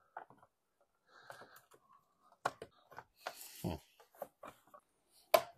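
Carbon fibre mirror cover being pushed and seated by hand onto a Kia Stinger's side-mirror housing: scattered light clicks, taps and scrapes of the shell against the plastic, a duller knock about two-thirds of the way in, and a sharp click near the end.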